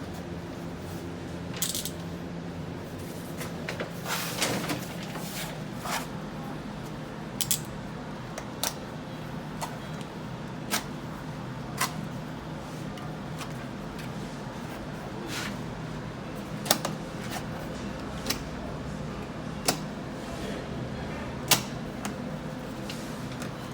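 Sharp clicks and taps of wallpapering hand tools being handled and set against the wall, irregular, roughly one every couple of seconds, over a steady low hum.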